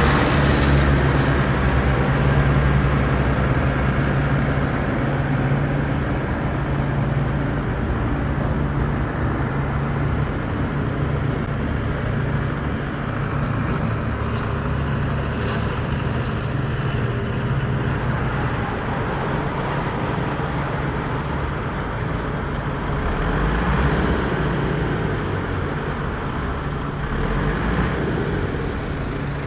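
Remote-control construction toy vehicles running: a steady low engine-like drone with mechanical noise. It is strongest in the first few seconds and then eases off.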